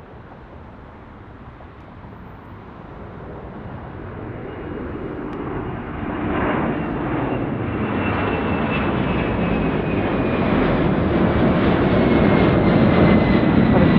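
Boeing 767-300ER's twin jet engines at takeoff power as it climbs out, growing steadily louder, with a high whine that slowly falls in pitch.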